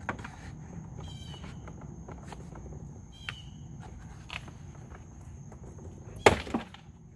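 Plastic door trim panel being pried and worked against its retaining clips, with scattered small clicks, then a loud sudden pop about six seconds in as the panel snaps free of the clips, followed by a smaller knock. Crickets chirp faintly in short trills.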